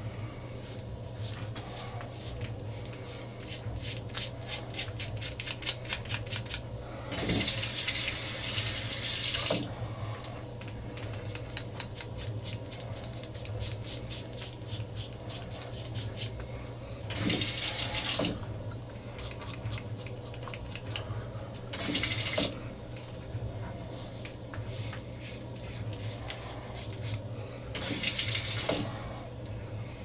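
A Gillette Fusion 5 five-blade cartridge razor scraping through lathered stubble, heard as a quick run of fine clicks with each stroke. A water tap runs loudly in four bursts to rinse the blade; the first lasts over two seconds and the others a second or less.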